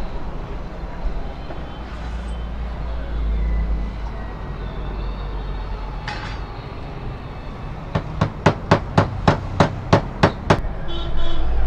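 About ten quick, sharp hammer taps on a shop work table, roughly four a second, starting about eight seconds in, over a steady low rumble of traffic.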